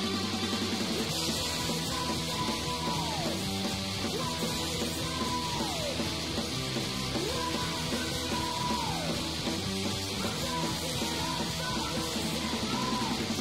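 Female-fronted hardcore punk recording with the full band playing, under a woman's screamed vocals. Several held screamed notes slide downward in pitch at the end of a line.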